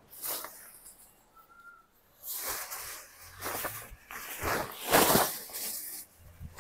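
Tent fabric rustling and swishing in a run of noisy bursts as it is gathered up and shaken out, loudest about five seconds in.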